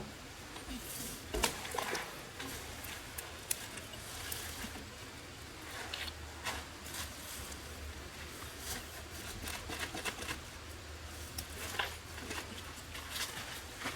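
Scattered soft rustles and clicks, irregular and short, over a faint steady low hum.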